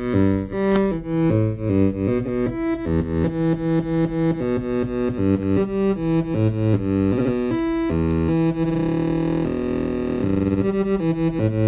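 Eurorack modular synthesizer sequenced by a Make Noise René, stepping through a pattern of short pitched notes that changes as it goes. Past the middle a note is held for a couple of seconds, then the notes come faster, about five a second.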